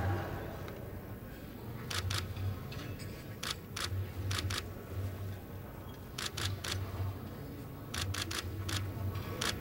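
Camera shutters firing in quick bursts of two or three clicks, several bursts a couple of seconds apart, over a low background hum.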